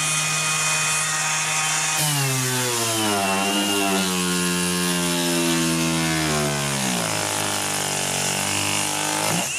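Bosch GEX 18V-125 brushless random orbit sander running at top speed, then loaded down hard about two seconds in: its motor pitch drops and stays low under heavy pressure but does not stall. The pitch rises back near the end as the pressure comes off.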